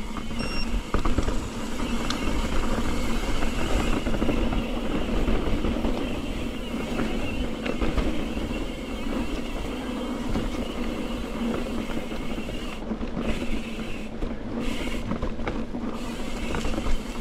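Santa Cruz Bronson mountain bike rolling fast down a dirt singletrack: a steady rush of wind over the camera microphone mixed with tyre noise on the dirt and small knocks and rattles from the bike.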